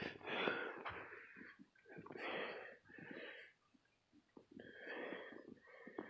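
A person breathing close to the microphone, about four breaths spaced a second or so apart.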